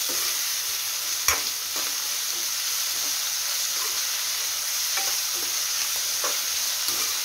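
Chopped vegetables sizzling in hot oil in a kadai as they are stir-fried, with a slotted metal spatula scraping and knocking against the pan. There is one sharp knock about a second in and lighter ones later.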